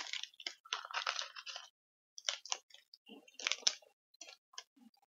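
Crinkly plastic wrapper of a chocolate wafer snack being handled and torn open, in irregular clusters of short crackles with brief pauses between them.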